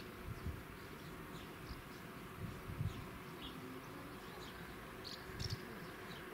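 Quiet outdoor ambience: scattered short bird chirps over a faint steady buzz, with a few brief low thumps, the loudest about three seconds in.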